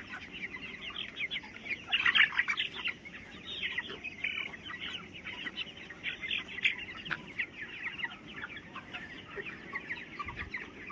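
A flock of 23-day-old broiler chickens chirping and peeping, many short calls overlapping, with a louder burst about two seconds in. Among the calls is the 'chick chick' respiratory sound of an early, fast-stage breathing problem, which the farmer says is only slight and may be hard to pick out.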